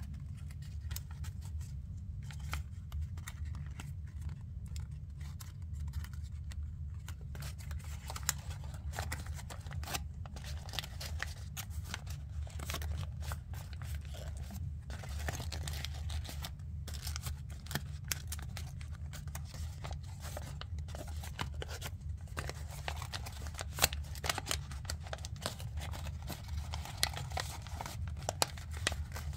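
Origami paper rustling and crinkling as hands fold and press creases into a thick, many-layered paper model: scattered small crackles, busier from about seven seconds in, over a steady low hum.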